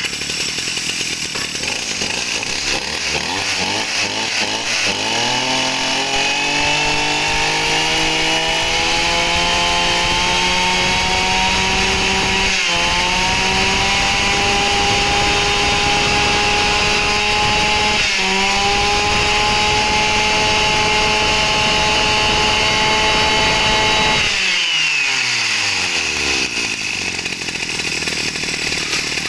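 Robin 30cc two-stroke brush cutter engine idling, then opened up to full speed about five seconds in. It holds there with two brief throttle dips and drops back to idle near the end, running strong.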